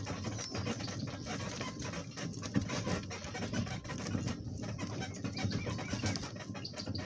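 Footsteps of a man and a donkey moving through brush, an irregular rustling and crunching, with birds chirping faintly.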